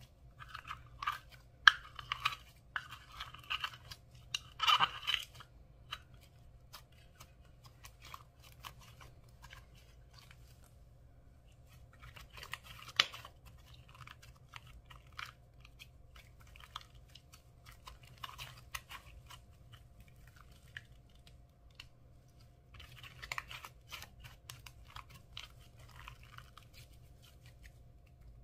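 Thick slime being stretched, squeezed and folded by hand, making sticky crackles and popping clicks. They come in bursts, busiest in the first few seconds and again around the middle and near the end, with quieter spells between.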